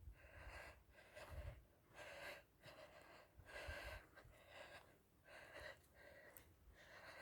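Faint heavy breathing, a breath in or out about once a second.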